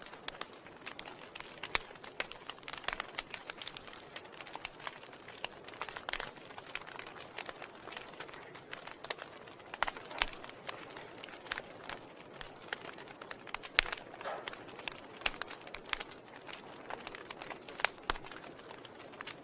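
Wood fire burning in a fireplace, crackling: irregular sharp pops and snaps over a steady soft hiss, a few of them much louder than the rest.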